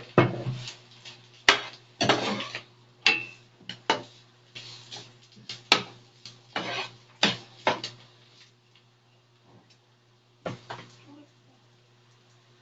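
A cooking spoon or spatula scraping and knocking against a pan in quick irregular strokes as carrots are stirred in with browned chicken, the strokes thinning out after about eight seconds. A steady low hum runs underneath.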